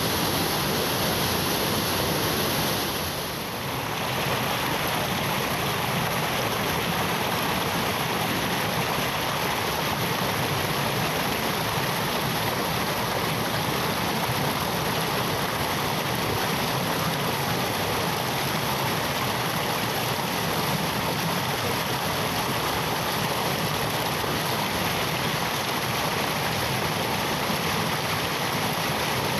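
Waterfall pouring heavily, a steady rush of water that dips briefly in level about three seconds in.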